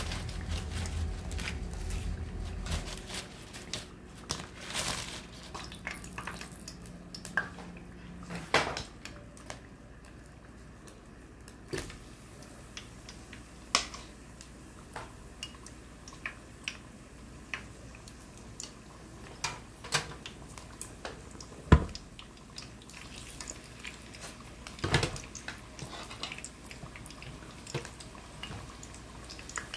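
Scattered clinks and knocks of chopsticks against a metal mixing bowl and the frying pan, with the odd drip, as sweet potato slices are battered and put into hot oil for frying. The sharpest knock comes a little past the middle.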